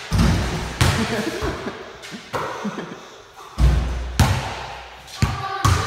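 Basketball thudding against the floor and the hoop in an echoing wood-panelled room: about eight sharp thuds at uneven intervals, each ringing out briefly, the deepest about three and a half seconds in.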